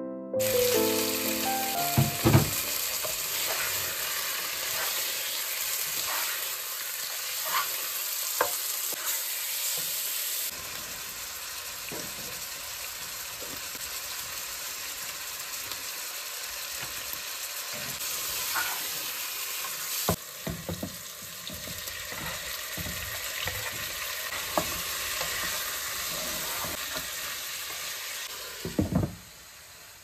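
Chunks of beef sizzling in hot oil with fried onions in a cooking pot, a steady dense hiss, while a spatula stirs them and knocks against the pot. A louder knock comes near the end.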